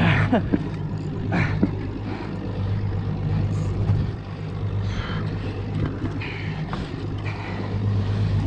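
Boat engine running steadily at low revs, a constant low hum, with wind and water noise; a couple of short falling squeaks in the first two seconds.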